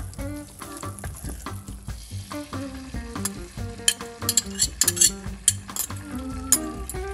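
Butter and beaten egg sizzling in a hot nonstick frying pan. A run of sharp clicks, the loudest sounds, comes from about three to six and a half seconds in, as a fork scrapes and taps the last of the egg out of a container.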